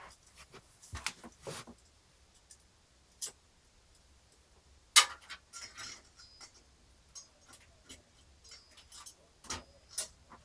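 Scattered sharp clicks and knocks of a CPU fan and heatsink being handled and fitted onto the motherboard, with the loudest click about five seconds in.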